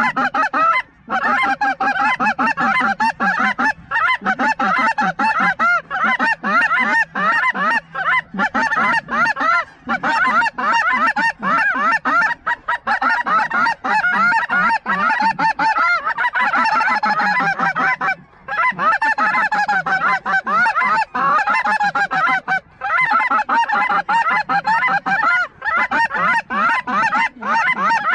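Dense, loud chorus of snow geese honking and yelping, many overlapping calls with no break.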